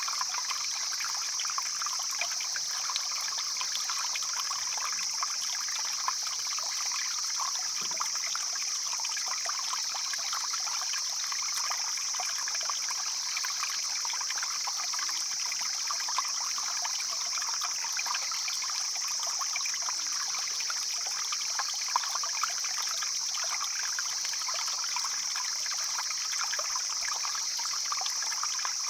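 Stream water flowing and trickling steadily, with a constant high-pitched hiss above the splashing.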